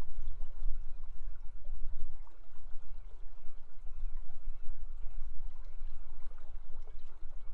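River water rushing steadily, with a heavy low rumble beneath it.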